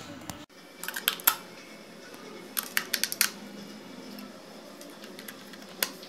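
AA batteries being pressed into the plastic battery compartment of a toy RC car's remote control: two short clusters of light plastic clicks and taps, then one more click near the end as the battery cover snaps shut.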